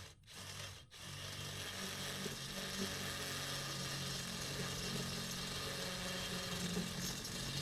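Electric drill boring out holes to enlarge them: a couple of short starts, then it runs steadily under load from about a second in.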